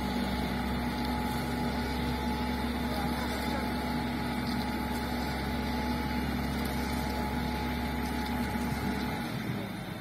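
Diesel engines of heavy construction machinery, an excavator and a self-loading concrete mixer, running steadily with a low rumble and a steady hum. The low rumble drops away about nine seconds in.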